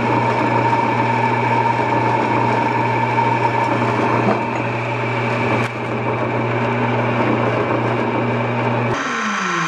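Bandsaw running and cutting slowly through a metal block, with a steady motor hum and a higher whine over the rasp of a fine-tooth blade. The sound drops a little and changes character about two-thirds of the way through.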